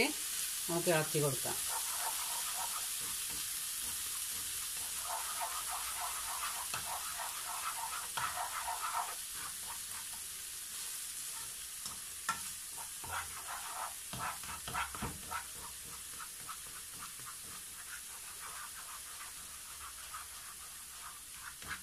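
Chopped cheera (amaranth) leaves and a ground coconut mixture sizzling in a non-stick frying pan, with the scrapes and taps of a plastic slotted spatula stirring and mixing them. The stirring strokes come thickest in the middle.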